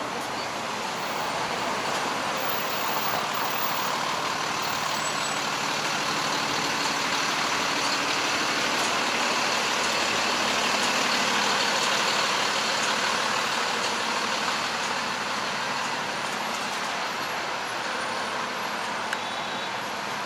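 Road traffic passing close by on a busy multi-lane street, a steady rush of engines and tyres that swells for several seconds about midway and then eases off.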